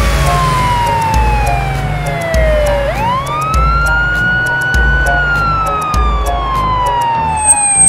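Police car siren wailing: one tone that falls slowly, sweeps quickly back up about three seconds in, holds briefly and falls slowly again. It plays over background music with a steady bass beat.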